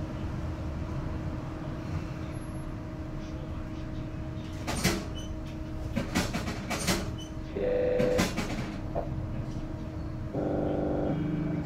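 Inside a Golden Dragon XML6105JHEVG5C6 plug-in hybrid city bus running between stops: steady drive noise with a constant hum. Several sharp knocks and rattles come between about five and nine seconds in, and short buzzing tones sound about eight seconds in and again near the end.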